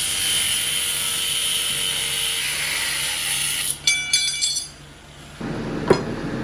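Angle grinder running and cutting steel flat bar, a steady high-pitched whine and hiss for nearly four seconds, ending in a brief rattle of ringing metal clinks. About a second and a half later, two sharp metal knocks.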